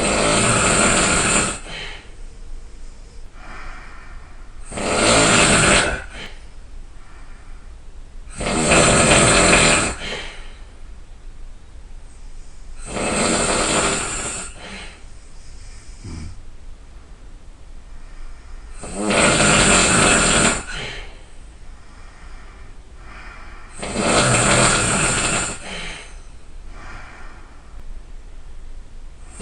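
A person snoring very loudly: six long, loud snores, each about a second and a half, coming every four to five seconds with a longer pause after the fourth, and softer breathing sounds between them.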